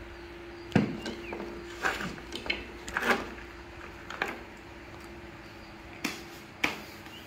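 Scattered light knocks and taps as plastic toys and a plastic baby bottle are handled on a tabletop, about eight in all with the sharpest a little under a second in, over a steady low hum.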